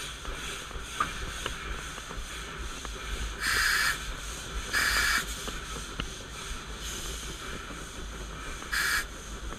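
Puffing Billy steam locomotive 14A running, heard from its cab, with three short loud bursts of hissing steam about three and a half, five and nine seconds in.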